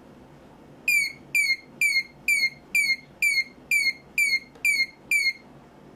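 OWON SDS6062 oscilloscope's beeper sounding its pass/fail alarm: ten short high beeps, about two a second, each dipping slightly in pitch, starting about a second in. The beeps signal that the waveform has gone outside the set mask tolerances and is being counted as a fail.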